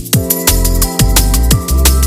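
Electronic music with a heavy bass line, held synth tones and a kick drum beating about twice a second.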